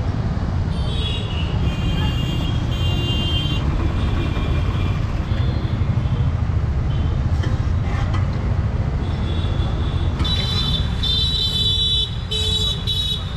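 Street traffic noise: a steady rumble of passing vehicles, with short high horn toots from about one to three seconds in and again near the end.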